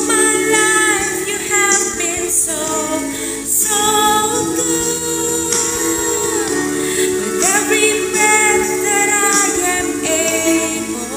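A woman singing a slow worship song over a karaoke backing track. Her voice holds long notes above a steady accompaniment.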